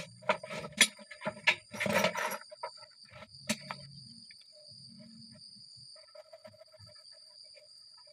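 Metal hand tools clinking and scraping as a long flat file is handled over a work board: several sharp clinks in the first few seconds and a short rasping scrape about two seconds in, then only small knocks. A steady high-pitched hum runs underneath.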